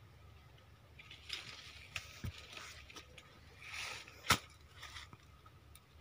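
Leaves and undergrowth rustling as hands work at the ground, with a few light clicks and one sharp snap about four seconds in, the loudest sound.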